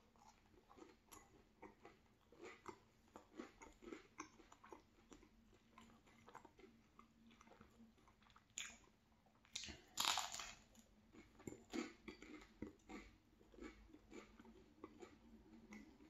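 Quiet chewing of a cheese bagel, with small mouth clicks throughout and two louder crunching bites about nine and ten seconds in.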